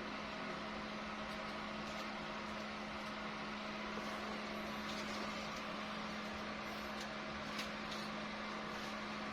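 A steady motor hum with one strong constant low tone, and a few faint ticks in the second half.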